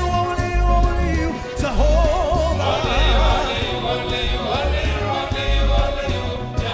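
Live gospel praise music: a singer holds a long note, then sings wavering runs over a steady, pulsing bass beat.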